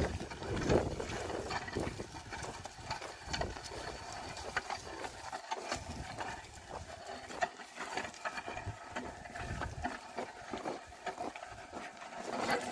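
Oxen working a field: scattered irregular knocks and thuds of hooves and plough against an outdoor background.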